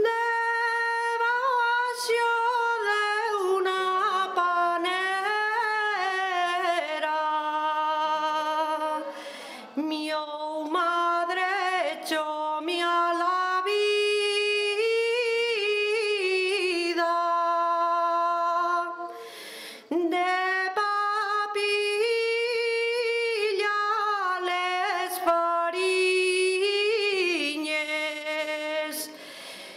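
A woman singing alone without accompaniment: a slow melody in long held notes that bend and waver, sung in phrases of about ten seconds with short breaths between them.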